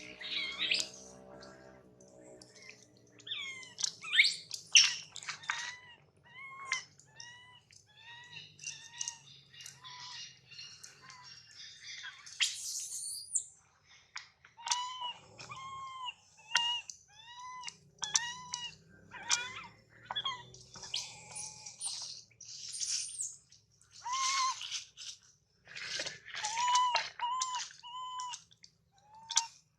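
Baby monkey crying: a long run of short, high calls that rise and fall, roughly one or two a second, mixed with harsher screeching cries.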